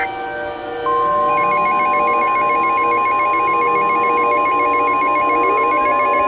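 Alert tones from a simulated emergency broadcast. About a second in, a single steady tone near 1 kHz begins, the NOAA Weather Radio warning alarm tone. Soon after, a rapidly pulsing, ringing electronic alert tone joins it, along with faint rising pitch glides.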